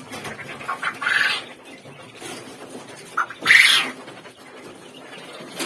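Young quail in wire cages calling: a few short, high calls, the loudest about three and a half seconds in, while birds are being reached for in the cage.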